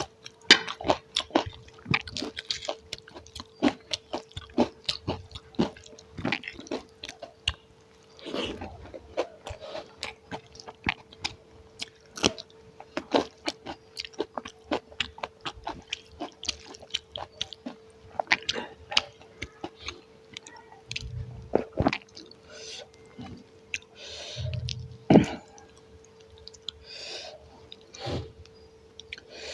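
Close-miked chewing and eating: wet mouth sounds and lip smacks with small sharp clicks, coming irregularly throughout.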